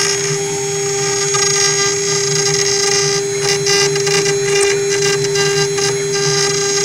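CNC router spindle running with a steady whine while its bit carves a relief into a wooden panel, the cutting noise rising and falling in short irregular bursts as the bit bites into the wood.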